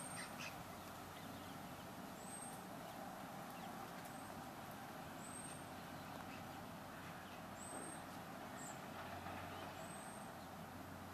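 Steady distant road-traffic hum, with a small bird's short, high, thin chirp repeating every second or two.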